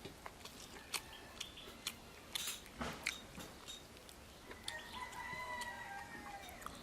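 Close-up eating sounds: chewing and smacking with sharp clicks scattered throughout. About two-thirds of the way in, a rooster crows once in the background, a held call of about two seconds.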